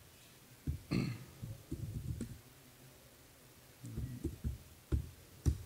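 Irregular soft taps and thumps of laptop keyboard typing as a terminal command is entered, with a short, louder, brighter noise about a second in.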